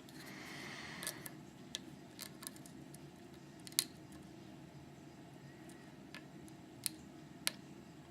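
Faint metallic clicks and scraping of a lock pick and tension wrench working the pins inside a Viro Totem chain lock, with a few sharp ticks spread out, the loudest nearly four seconds in.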